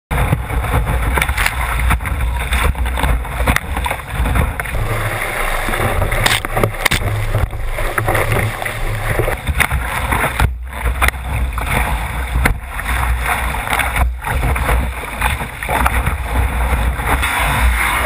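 Wind buffeting a microphone mounted on a surf kayak's deck, over the rush of breaking surf and spray, with the splashes of paddle strokes in the water. The sound cuts out briefly twice, at about ten and a half and fourteen seconds in.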